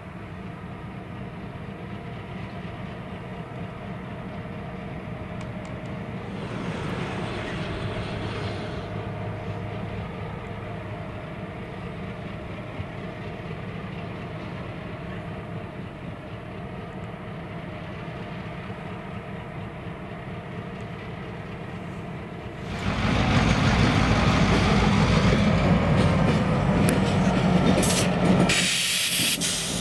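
Delmarva Central Railroad diesel locomotives running past slowly, their engines making a steady low drone. About 23 seconds in, the sound turns suddenly louder and rougher.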